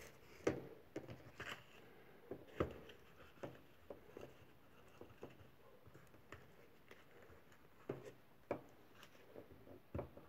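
Faint, irregular taps and light knocks of a cardboard model gun being handled, with a few sharper taps about half a second in, two and a half seconds in, and near the end.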